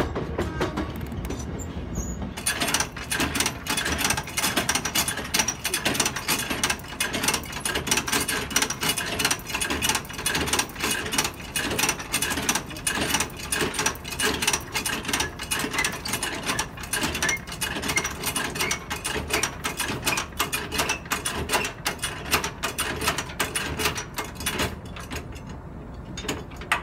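A commuter rail coach rumbles low as it comes to a stop. About two seconds in, rapid irregular mechanical clicking and rattling begins, like a ratchet, as a hand mechanism is worked in the coach's door vestibule, and it goes on until near the end.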